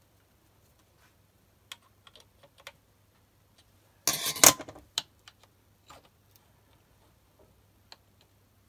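Light metallic clicks and ticks from handling the BS-0 dividing head's index crank and sector arms against the index plate, with a quick rattle of sharp clicks about four seconds in, the loudest part, and scattered single ticks after it.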